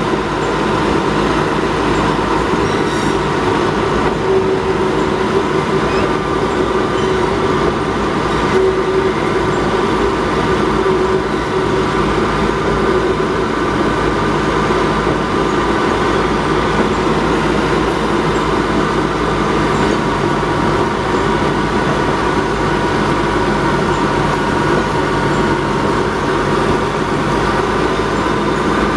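Diesel shunting locomotive's engine running steadily under way, a constant drone with a steady whine over it, with the rumble of the locomotive's wheels on the rails.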